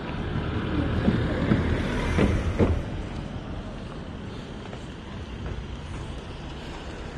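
Road traffic: a car passing close along the road, its tyre and engine noise swelling over the first few seconds and then easing off, with a few short knocks among it and wind buffeting the microphone.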